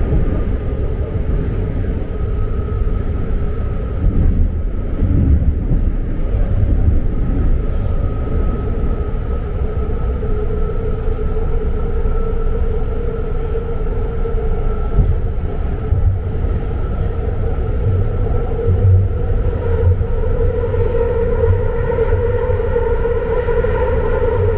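BART train running on the rails: a steady low rumble with a high whine held over it. Near the end the whine grows stronger and more tones join it.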